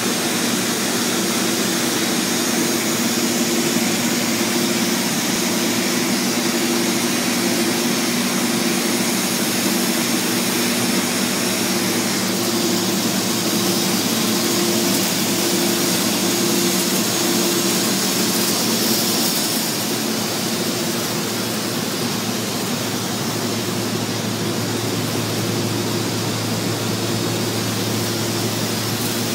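Steady, loud industrial machine noise at an overlay-welding setup: an even hiss over a constant hum, which shifts to a lower hum about 20 seconds in.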